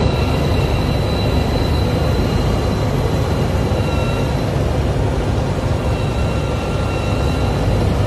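Tracked snow groomer running steadily under load as its front blade pushes through deep snow: a dense engine and track noise with a faint steady high whine over it.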